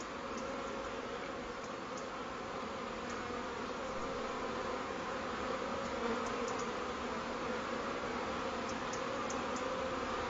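A steady, noisy buzzing drone with faint high clicks scattered through it.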